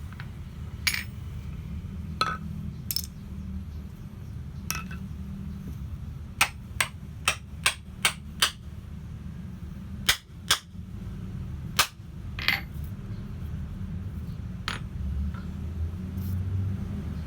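Sharp hammer strikes: scattered single blows, then a quick run of six at about three a second near the middle, and a few more later, over a low steady hum.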